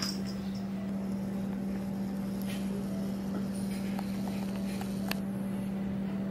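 Steady low hum at one pitch, with a few faint clicks and knocks.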